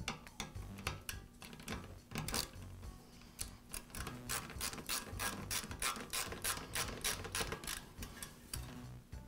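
Ratcheting socket driver clicking as it tightens the centre screw on a small-engine recoil starter cap. A few scattered clicks come first, then from about a third of the way in an even run of quick clicks, roughly four a second, as the driver is worked back and forth.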